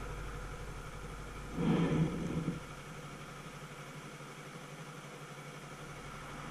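Motorcycle engine idling steadily while stopped at a traffic light. About one and a half seconds in there is a short, louder burst lasting about a second.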